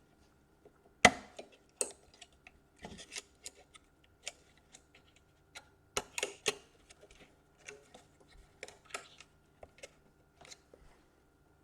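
Small hand tools clicking, tapping and scraping against a metal bracket on a laptop motherboard as it is pried loose, in irregular sharp clicks with a few louder snaps about a second in and around six seconds in. A faint steady hum lies under them.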